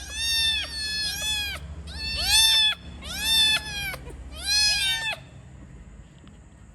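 Cat meowing over and over: about eight short, high-pitched meows in quick pairs, stopping about five seconds in.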